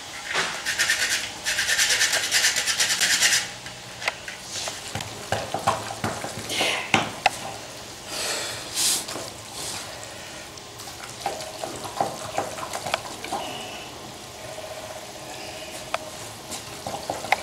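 Hands squishing and kneading a moist chard filling in a plastic bowl, with soft scrapes and small clicks against the bowl. A loud rustling noise fills the first three seconds.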